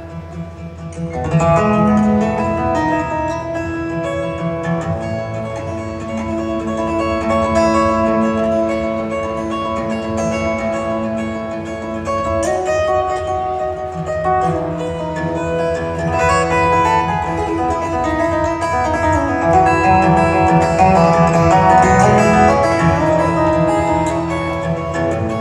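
Solo twelve-string acoustic guitar played live, an instrumental piece of picked notes that ring on and overlap. It swells louder about a second in.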